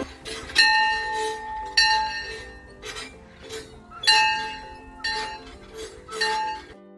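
A bell-like chime struck four times at uneven intervals, each time the same ringing note with high overtones that dies away within a second, over a faint background.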